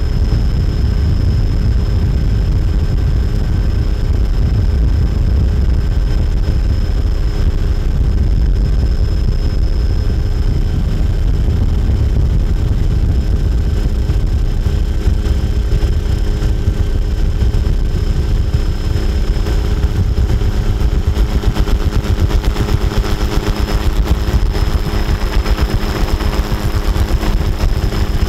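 Helicopter in flight: a steady heavy rumble with a constant turbine whine. A rapid fluttering pulse grows stronger over the last several seconds.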